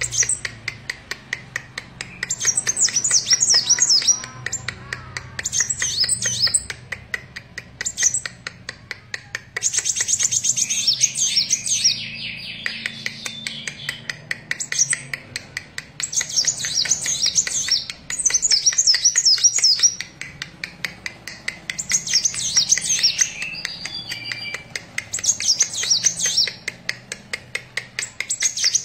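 A Kolibri Wulung sunbird singing, in repeated quick phrases of high, rapidly warbling chirps a second or two long, with short pauses between them.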